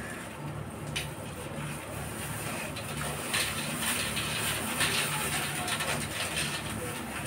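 Cut potato strips being mixed by hand in a wet flour batter in a steel bowl, squishing and rustling, with a click about a second in. A steady low rumble runs underneath.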